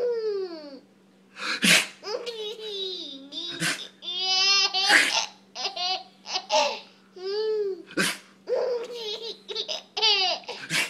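Baby laughing hard in repeated high-pitched peals, laughter that sweeps down in pitch, between several short, sharp fake sneezes from an adult.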